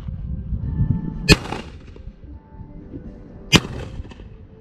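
Two shotgun shots about two seconds apart, each a sharp crack with a short ring after it, over a low wind rumble.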